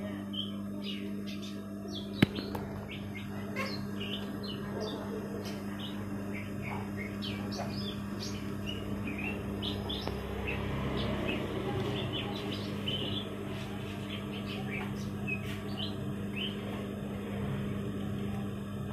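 Small birds chirping in quick, scattered bursts over a steady low hum, with one sharp click about two seconds in.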